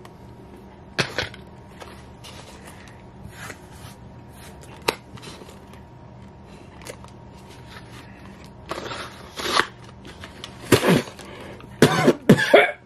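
Close-up eating sounds: a person biting into and chewing a mini pecan pie, with scattered crunches and mouth clicks over a steady low hum. Louder short mouth sounds come near the end.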